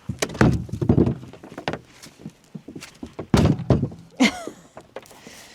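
Pieces of split firewood being tossed onto a pile, landing with several irregular wooden thunks and knocks.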